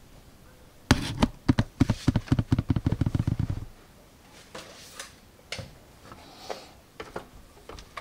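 Handling noise from the camera being moved and set down: a rapid run of knocks and rubbing thumps lasting about three seconds, followed by a few faint, scattered clicks.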